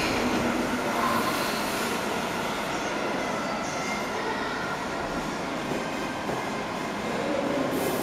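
Steady rushing background noise of a gym hall.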